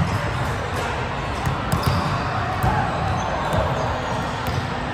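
Volleyballs being hit and bouncing, scattered sharp slaps and knocks from several courts, over the steady background din of a large sports hall.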